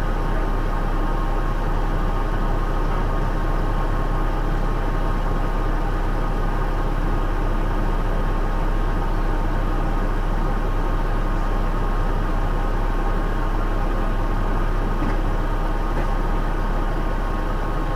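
Scammell S26 heavy-haulage tractor's diesel engine idling steadily, heard from inside the cab.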